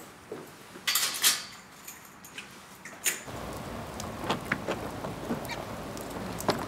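A few sharp clicks and rattles, then steady rain that starts suddenly about halfway through, with scattered drops ticking.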